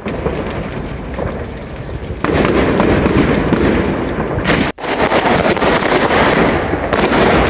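Fireworks going off in a dense, continuous crackle, stepping up louder about two seconds in, with a split-second gap about halfway through.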